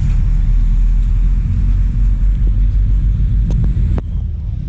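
Angkot minibus on the move: a steady low rumble of engine and road, with two sharp clicks near the end.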